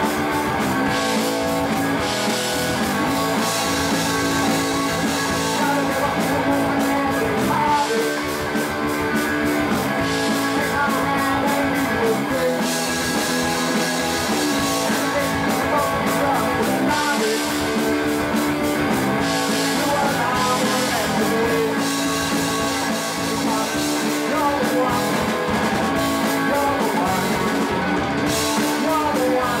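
Punk rock band playing live, with guitar and drum kit keeping a steady, continuous rhythm.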